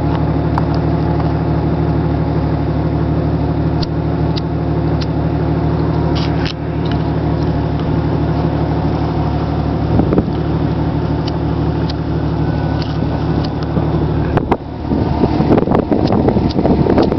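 Jeep Cherokee engine idling steadily. About fourteen seconds in, the steady hum gives way to a rougher, uneven rustling noise.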